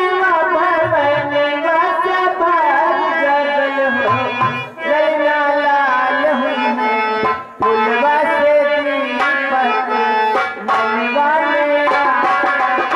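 Nautanki stage song: a voice singing a melody over tabla accompaniment, with two short breaks, about five and seven and a half seconds in.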